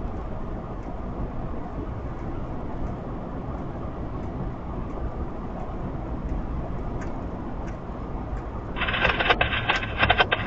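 Steady low rumble of idling diesel locomotives, with faint regular ticking over it. About nine seconds in, a loud, crackly radio transmission breaks in.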